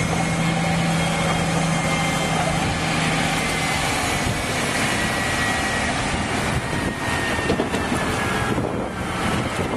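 Wheel loader's engine running steadily as it pushes a boat trailer down a slipway, with wind on the microphone. A low hum in the engine sound drops away about four seconds in.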